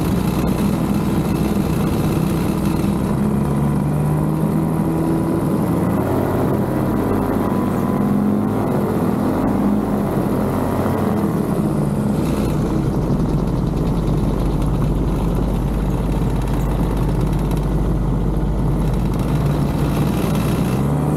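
Ultralight trike's engine and propeller running steadily on landing approach, with wind on the microphone and the pitch wavering as the throttle changes. About twelve seconds in, the sound shifts to a stronger low rumble.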